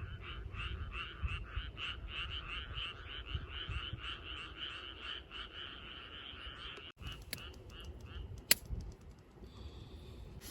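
A frog calling in a long run of rapid croaks, about five a second, that stops abruptly about seven seconds in; a few more croaks follow, then a single sharp click.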